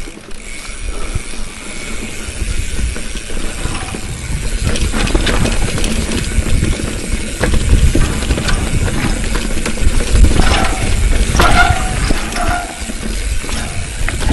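Bicycle rattling over a rough dirt trail, its chain and drivetrain clicking and clattering, with wind rumbling on the microphone. A few short squeaks come about three quarters of the way through.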